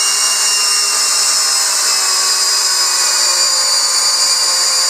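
Hart 20-volt brushless drill in low gear (speed one) driving a six-inch lag bolt through stacked 2x4s: a steady motor and gearbox whine under load, with the bolt grinding into the wood. It keeps turning without stalling and gets the bolt all the way down.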